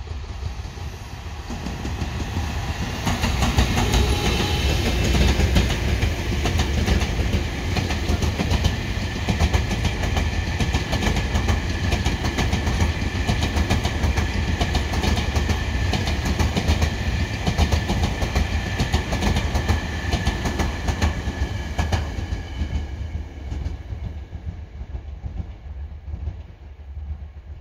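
EF210 electric freight locomotive hauling a delivery of unpowered Tobu N100 series cars past at speed: the sound builds over the first few seconds as the locomotive arrives, then the cars' wheels clack steadily over the rail joints with a thin high whine above, and it fades away over the last few seconds as the train moves off.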